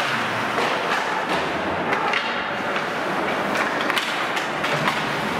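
Ice hockey play in a rink: a steady hiss of skates and arena noise, with repeated sharp clacks and scrapes of sticks, skate blades and the puck during a scramble in front of the net.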